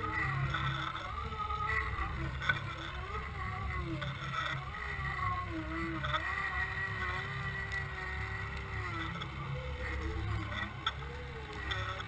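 Muffled underwater sound of a camera housing being towed behind a trolling boat: the rush of water past it and the boat's motor heard through the water. A low steady drone lies under a thin whine that slowly wavers up and down in pitch.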